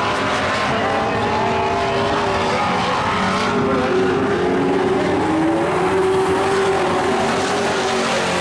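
Several dirt-track race trucks running hard around the oval. Their engine notes overlap and rise and fall as they pass and work through the corners.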